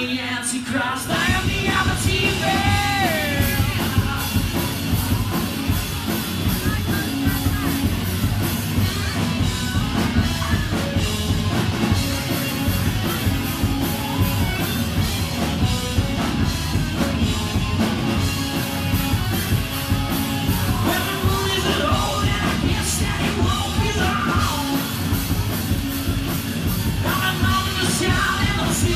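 Live rock band playing: electric guitar, bass guitar and drums with sung vocals.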